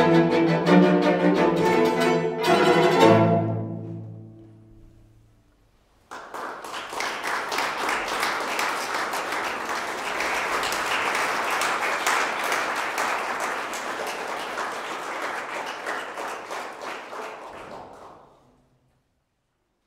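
A string quartet of violins, viola and cello plays its closing chords, the cello's low note ringing on last. About six seconds in, audience applause starts suddenly and goes on for about twelve seconds before fading out.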